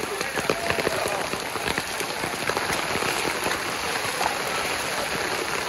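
Heavy rain pouring onto a flooded street: a dense, steady hiss with many close drops striking sharply through it.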